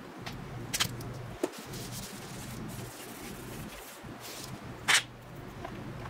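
Hands working the bass control knob of a Yamaha RX-495 stereo amplifier, with small clicks and scrapes as the knob is turned, pulled off its shaft and pushed back on. Two short hisses, about a second in and near five seconds, are the loudest sounds, over a faint steady low hum.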